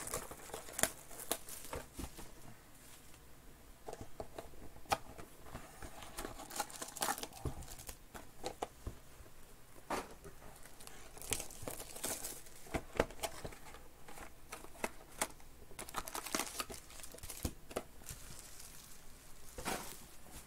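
Plastic wrapping crinkling and tearing as a Panini Select hybrid trading-card box is opened, with foil card packs rustling as they are pulled out and set down. Scattered crackles and light taps throughout.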